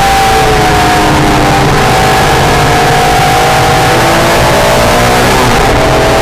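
Acura NSX's V6 engine running hard on a race track, with heavy wind and road noise. Its pitch sags slowly, then briefly breaks about five seconds in for a gear change and comes back higher.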